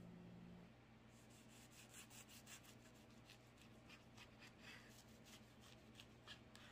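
Chef's knife slicing through a kimbap roll on a wooden cutting board: faint, quick ticking as the blade cuts the dried seaweed wrapper, starting about a second in.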